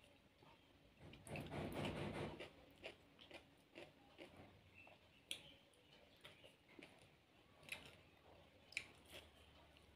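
Faint chewing and small mouth and finger clicks of someone eating by hand, with a louder stretch of noise between about one and two and a half seconds in.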